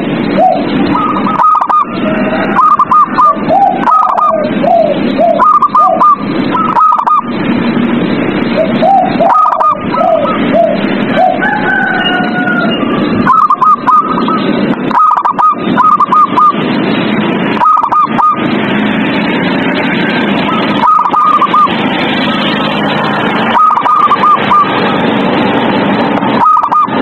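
Zebra doves (perkutut) cooing in short quick runs of three or four notes, phrase after phrase with some overlapping at lower pitch, over a steady hiss.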